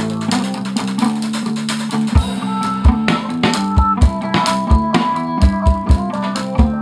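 Live band jamming: a drum kit plays a groove, with regular kick-drum hits and cymbal and snare strokes, under sustained guitar notes and a bass line.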